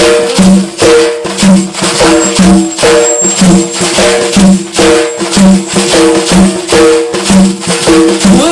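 Instrumental break in Arabic folk-style music: a short melodic phrase repeated over and over above a steady percussion beat of about two strokes a second, with tambourine-like jingles.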